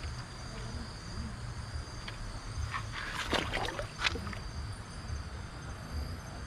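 Night insects, crickets, trilling steadily in high steady tones, over a low rumble. A short burst of crackling and splashing noise comes about three seconds in and lasts around a second.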